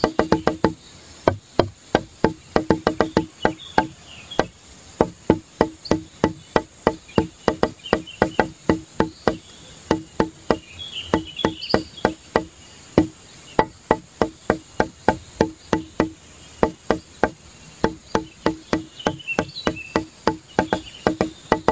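Background music: a quick, even beat of short percussive notes, about three to four a second, running steadily throughout.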